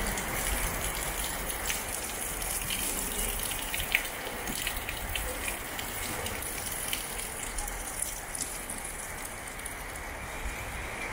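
Heavy rain pouring steadily, with water gushing and scattered drips ticking, one sharp tick about four seconds in.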